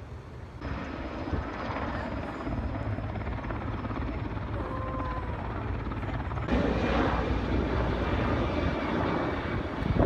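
Helicopter flying overhead: a steady rotor and engine din with a low rumble. It jumps louder about half a second in and again about six and a half seconds in.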